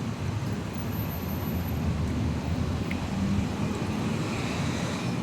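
Steady low rumble of vehicle traffic, with a constant low hum.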